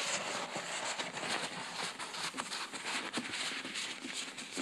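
A large paper poster being rolled up by hand: paper rustling and crinkling, with many short scratchy strokes.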